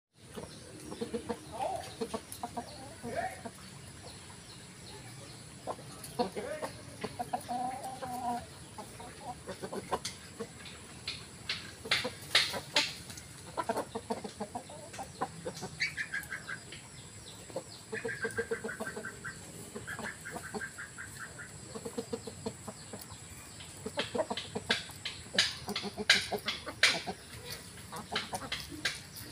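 Domestic roosters and hens clucking on and off, with a few short falling calls, amid scattered sharp clicks that come in clusters.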